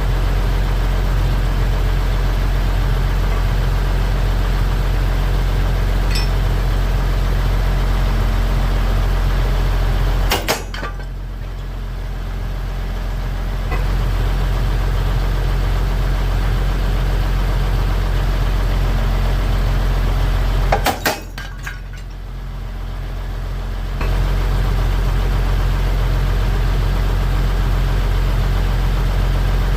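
A machine or engine running steadily with a loud low hum. It drops in level twice, each time for a few seconds after a sharp click, then comes back up.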